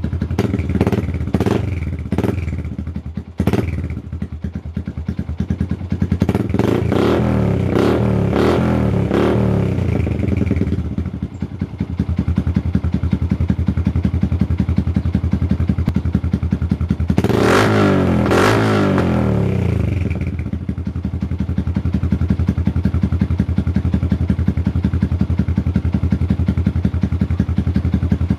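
Yamaha Sniper 150's single-cylinder four-stroke engine through a replica Akrapovic exhaust, idling and blipped with the throttle. A few quick blips come at the start and a cluster of revs comes a third of the way in, with steady idle between. One longer rev rises and falls just past the middle, then it settles back to idle. The revs are kept short of full throttle because it is very loud.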